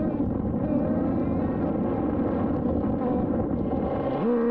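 Traxxas Jato 3.3's two-stroke nitro engine running while the car drives, heard from a camera on the car: for most of the time a dense, rough rushing sound with no clear pitch, mixed with road and wind noise. About four seconds in, the engine's buzzing tone comes through clearly again, holding steady at first.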